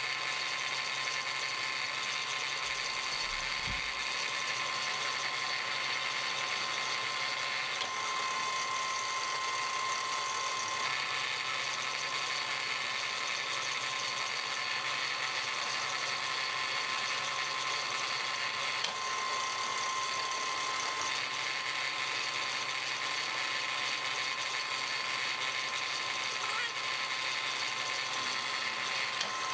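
Powered slip roll machine running steadily with a constant whine from its electric motor and gearing, rolling a flat steel strip into a ring.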